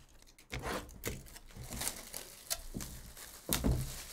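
Clear plastic shrink-wrap being torn and crumpled off a sealed trading-card box by hand: a string of irregular crackles and rustles, loudest about three and a half seconds in.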